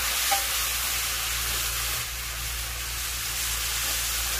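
Beef bulgogi and pine mushrooms sizzling steadily on a hot round griddle pan, an even hiss, with a steady low hum underneath.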